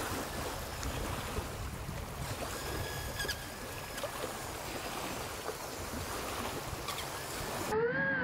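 Wind and choppy water, with a faint whine from the RC hydrofoil's motor. Near the end, the motor's whine comes in loud and close, its pitch wavering up and down as the boat runs through the waves.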